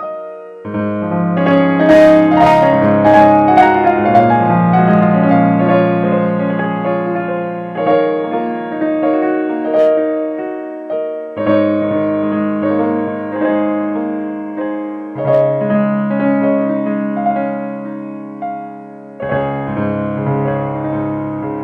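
Background piano music, a slow melody of held chords.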